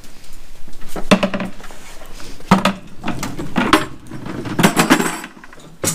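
Metal buckets clanking and clattering, four or five spells of rattling knocks followed by one sharp knock near the end.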